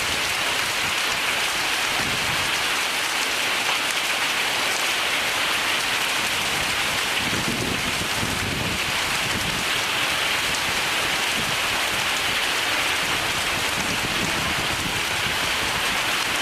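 Heavy storm rain falling steadily, a dense even hiss of drops, with a low rumble about halfway through.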